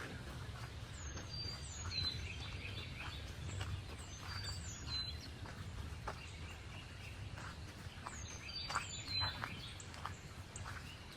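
A songbird singing short phrases of high, falling whistles, three phrases a few seconds apart, over footsteps on a forest path and a low rumble.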